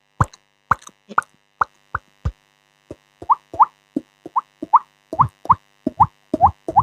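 Beatboxer making water-drop sounds with the mouth: a string of short plops, each rising quickly in pitch. They come slowly at first, then after a brief pause faster and more evenly.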